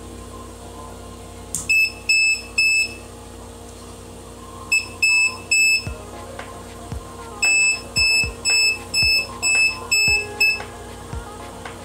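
Non-contact voltage tester pen giving its alarm: short, high beeps in runs that start and stop as its tip moves along a live mains cable, then a steady run of about three beeps a second near the end. The beeping is the sign that it is sensing AC voltage in the cable. Background electronic music plays underneath.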